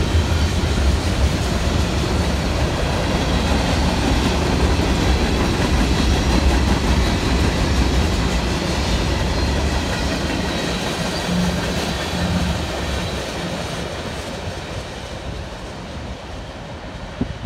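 Freight cars of a Norfolk Southern train rolling past, steel wheels on the rails making a steady low rumble and clatter. The sound fades over the last several seconds as the train moves away.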